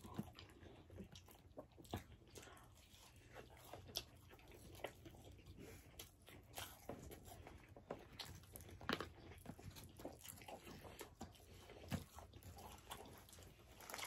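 Faint chewing and mouth sounds of people eating French fries and chicken wings, with scattered small clicks and taps.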